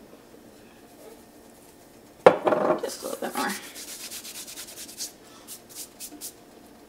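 Hands rubbing palm against palm, crumbling dried parsley into a pot of filling. It starts with a sudden loud rub about two seconds in, then goes on as a quick run of short rubbing strokes.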